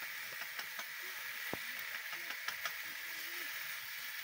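Chopped greens sizzling in a small pan over a wood fire, a steady hiss, with a few light clicks while they are stirred with sticks.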